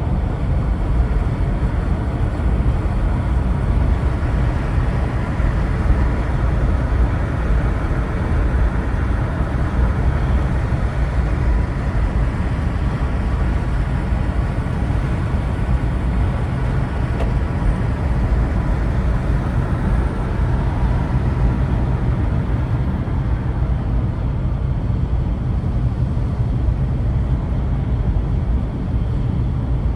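Steady low rumble of a vehicle on the move, engine and road noise holding level without a rise or fall.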